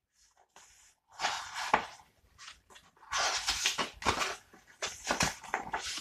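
Pages of a paper picture book being turned and handled, in three bursts of paper rustling.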